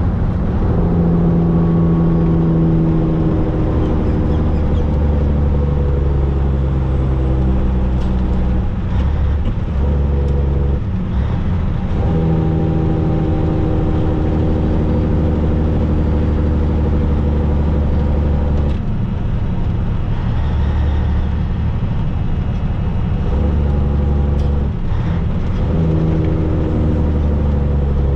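Semi truck's diesel engine heard from inside the cab, running under load as the truck is driven through several gear changes, the engine note breaking off briefly at each shift and picking up again at a new pitch.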